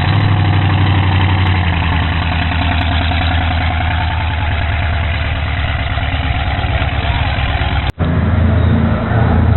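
Offshore racing catamaran's engines idling as the boat moves off slowly, a deep steady rumble. Just before the end the sound cuts out for an instant, then a similar low engine rumble carries on.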